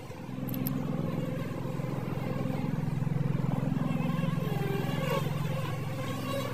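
A mass of honey bees buzzing: a steady low hum that swells up over the first second and cuts off near the end.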